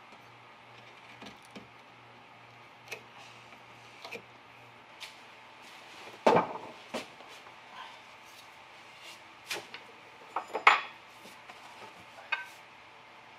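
Scattered knocks and clatter of hand tools and wood being handled on a wooden workbench, with a louder knock about six seconds in and another about ten and a half seconds in.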